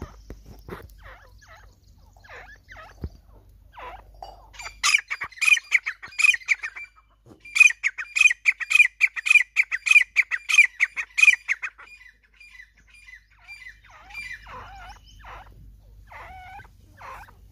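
Grey francolin (desi teetar) calling: scattered soft notes, then about five seconds in a loud, shrill run of rapidly repeated notes, about three a second, with a brief break, stopping about twelve seconds in; softer calls follow near the end.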